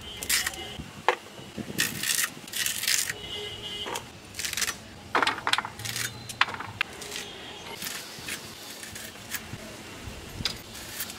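Vegetables being chopped by hand on an upright bonti blade: irregular crisp snaps and crunches as sweet potato and then yardlong beans are pushed through the blade, with light metallic clinks.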